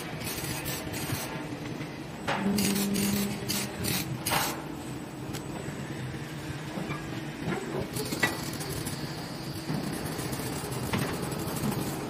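Rail-guided transfer vehicle moving along its floor track under a steel frame load, against factory machinery noise. There are sharp mechanical knocks about two and four seconds in and a short hum between them, and a thin high whine sets in about two-thirds of the way through.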